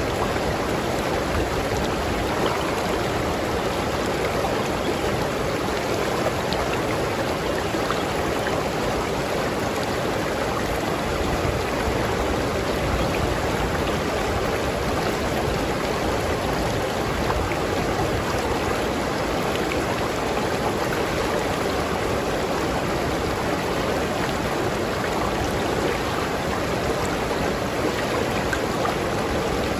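River stream flowing over rocks: a steady, even rush of water.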